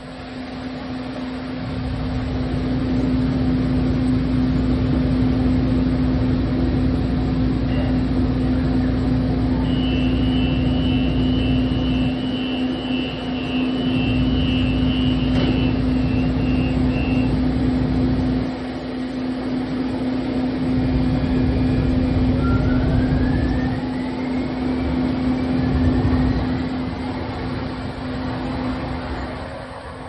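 Siemens S200 light rail vehicle running along the track, heard from on board: a steady low hum throughout under a rumble that swells and eases several times. A high-pitched squeal lasts several seconds in the middle, and two rising whines come near the end.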